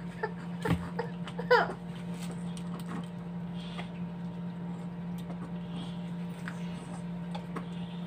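Spoon scraping and tapping in a plastic tub of rice, with light clicks, over a steady low hum. A short sound falling in pitch stands out about one and a half seconds in.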